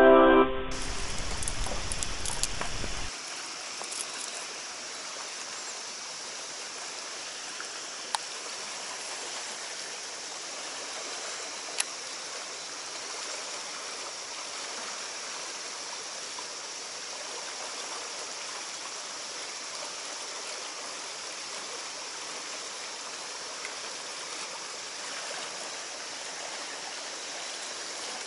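A short musical jingle opens, then gives way within about three seconds to the steady rush of stream water running over rock. Two sharp clicks stand out, about eight and twelve seconds in.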